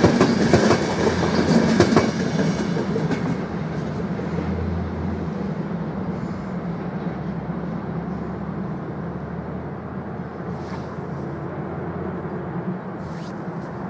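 Passenger train passing close, its wheels clattering over the rail joints, with the loudest knocks in the first couple of seconds. The clatter then fades into a steady rumble as the train moves away.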